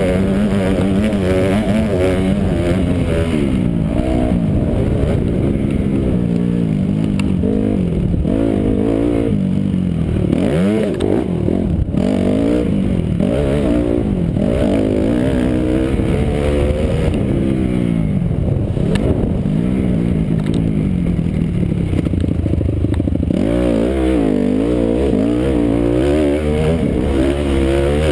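A motocross dirt bike's engine at race pace, heard up close from on the bike. Its pitch climbs and drops again and again as it is throttled hard and shifted through the gears, and the sound is dull and muffled.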